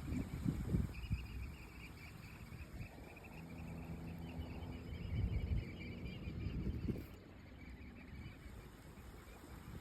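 Wind buffeting the microphone in gusts, with a steady low hum for a few seconds in the middle.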